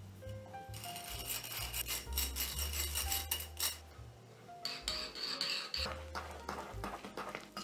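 Scratchy scraping and rubbing of a utensil against a bowl or dish, in two stretches, the second shorter, over soft background music.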